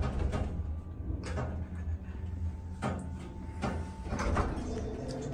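Vintage Westinghouse elevator car riding with its door shut: a steady low hum inside the car, with a few light clicks and a faint brief whine about three seconds in.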